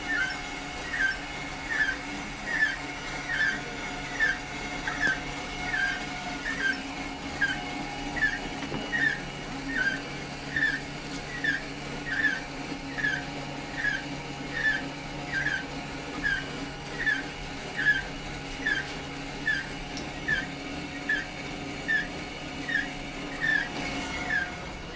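A short falling chirp repeating very regularly, about five times every four seconds, over a faint steady low hum.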